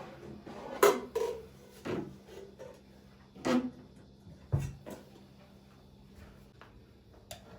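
Household objects handled and set down: about six separate knocks and clunks over a few seconds, with a deeper thud about four and a half seconds in.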